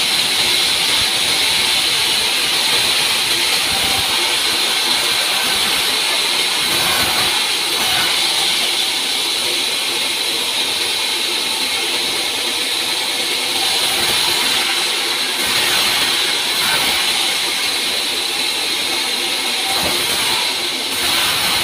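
Large vertical band saw running and cutting through a stack of wooden slabs: a loud, steady, high-pitched hissing whine that dips slightly now and then as the wood is fed.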